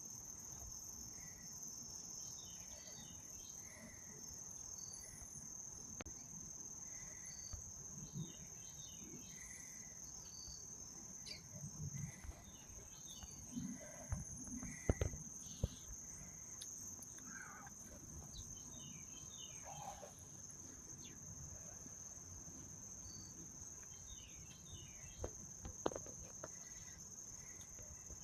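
Insects trilling steadily at a high pitch, with a bird giving a short burst of high notes every four to six seconds. A few soft knocks and rustles come in around the middle and again near the end.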